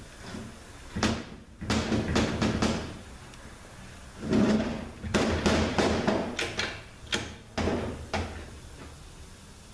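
Metal parts of a Mercedes 722.6 automatic transmission clanking and scraping against each other and the steel workbench as the case and its internals are worked apart, in a string of knocks and rattles.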